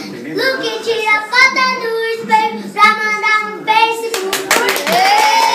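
A young boy singing a sertanejo song in short phrases. About four seconds in the singing stops and there is a brief burst of hand clapping.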